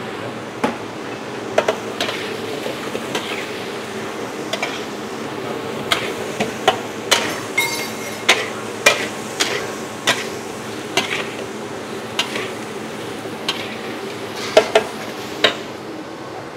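Spatula knocking and scraping against a wok as vegetables and chicken are stir-fried, with irregular sharp clanks over a steady frying hiss.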